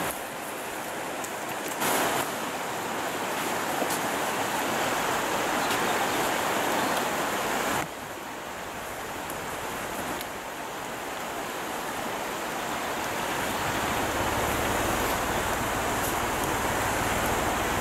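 River water rushing steadily over rapids, an even hiss. The level steps abruptly about two and eight seconds in, and a low rumble joins in about two-thirds of the way through.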